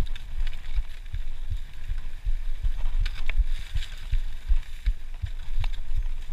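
Mountain bike riding fast down a dirt forest trail: wind rumble and irregular low thumps from the bumps on the camera microphone, with scattered clicks and rattles from the bike.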